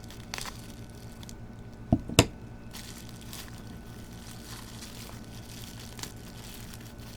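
Packaging being handled and unwrapped by hand: faint crinkling with a few small clicks, and two sharper knocks about two seconds in.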